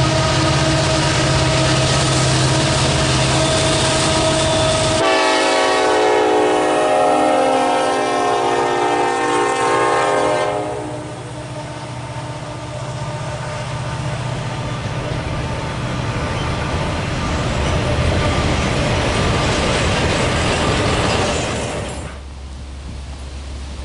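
Train horn sounding a loud held chord, switching suddenly about five seconds in to another horn blast that lasts until about ten seconds. The horn is followed by the steady rumble and clatter of a train rolling past, which cuts off abruptly near the end.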